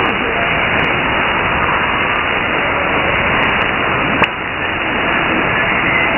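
Shortwave receiver hiss and static from a sideband (USB) signal on 6930 kHz, with no clear tone or voice standing out. A single sharp click comes about four seconds in, and the noise dips briefly after it.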